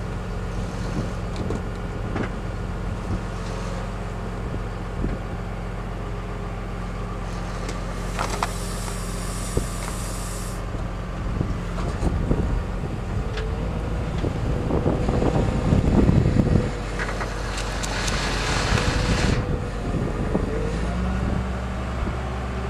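Wheel loader's diesel engine running steadily under the machine. Two spells of hiss, about 8 s and 18 s in, and a thin whine from about 13 s to 21 s are heard over it. A burst of knocks and rattles, the loudest part, comes around 16 s.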